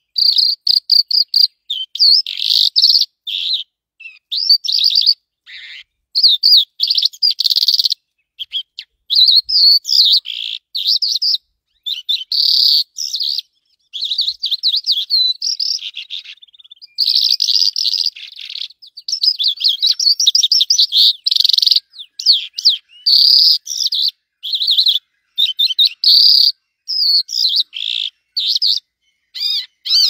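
A small bird singing a fast, high twittering song of rapid chirps and trills, in phrases of a second or two broken by short pauses.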